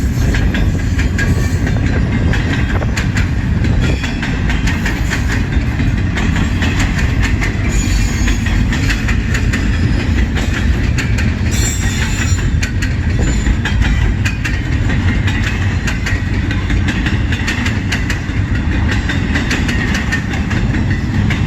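CN freight train's cars rolling past: a steady heavy rumble with rapid wheel clicks over the rail joints, and a couple of brief faint wheel squeals.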